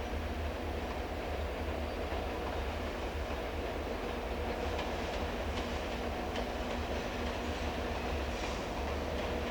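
Electric train running past with a steady rumble and hum. From about five seconds in there is a faint run of wheel clicks over the rail joints.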